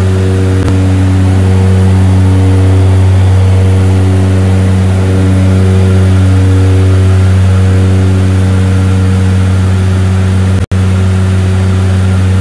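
Propeller aircraft's engines and propellers droning steadily, heard from inside the cabin: a loud, deep hum with a steady tone on top. The sound drops out for an instant near the end.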